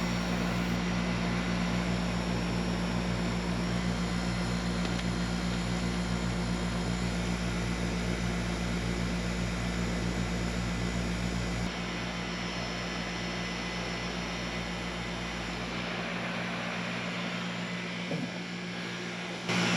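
Heat pump outdoor condenser unit running: a steady compressor hum with the rush of the condenser fan, running quietly. The deepest rumble eases about twelve seconds in.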